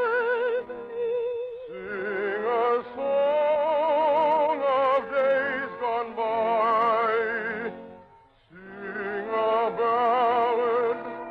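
Operatic singing with strong vibrato over orchestral accompaniment, in long sung phrases with a short break about eight seconds in. It comes from an early-1950s radio broadcast recording.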